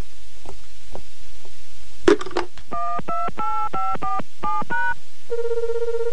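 A telephone handset picked up with a clack, then a push-button phone dialled: about ten quick two-tone keypad beeps. Near the end a steady warbling ringing tone sounds on the line as the call goes through.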